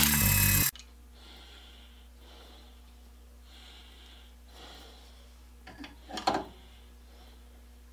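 A bench grinder grinding the end of a steel rod, breaking off abruptly within the first second. Then soft rasping strokes, about one a second, from a hand threading die being turned onto the rod to cut a 1/4-20 thread, with a few sharp metallic clicks about six seconds in.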